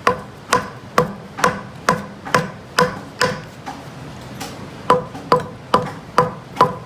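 Japanese adze (chouna) hewing Japanese cedar (sugi): steady chopping strokes about two a second, each a sharp knock with a short ring. The strokes pause briefly about halfway through, then resume.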